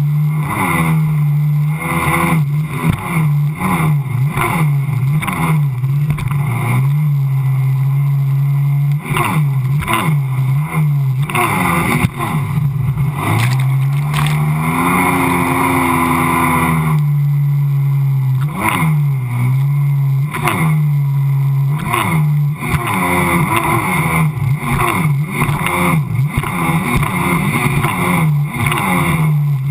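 Sea-Doo personal watercraft engine running at high revs over choppy water, its pitch dipping and surging as the hull hits the waves, with water slapping and rushing close by. About halfway through the revs climb and fall back over a few seconds as the craft comes off a wave and the jet pump briefly loses its grip on the water.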